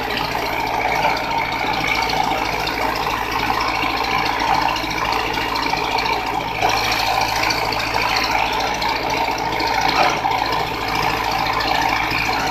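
Cat E110 excavator's diesel engine running steadily, with a light rattle.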